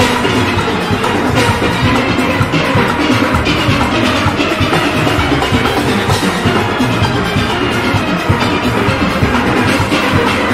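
A steel orchestra playing: many steelpans together over a drum-driven rhythm section with a steady beat.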